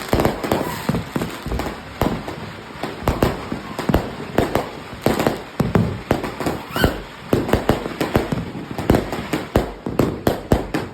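Fireworks going off in quick, irregular succession: many sharp bangs and reports, several a second and often overlapping, with a brief rising whistle about seven seconds in.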